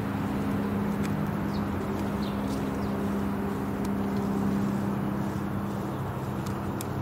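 Twin piston engines and propellers of a Tecnam P2012 Traveller droning overhead, a steady hum whose pitch drops a little near the end as the aircraft passes. A few short bird chirps are heard in the first seconds.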